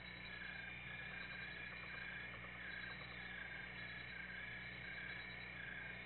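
Night insects chirping steadily in a faint, even chorus, over a low steady hum. No explosion or boom is heard.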